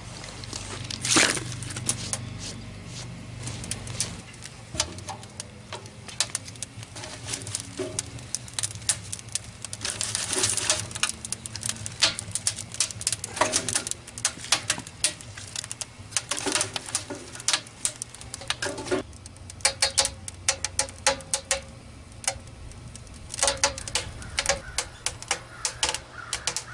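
Kindling fire crackling and popping inside the firebox of a small sheet-steel tent wood stove, a slow first fire lit to cure the new stove. Sharp cracks come irregularly and thickly throughout, some much louder than others, over a low steady hum.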